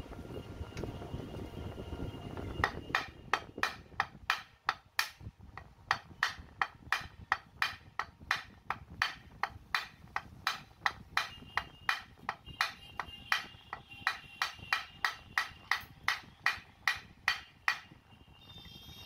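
Repeated sharp knocks, about two a second for some fifteen seconds, driving a tight armature out of a 16 kg electric breaker hammer by knocking with a piece of wood. The knocks begin a few seconds in and stop shortly before the end.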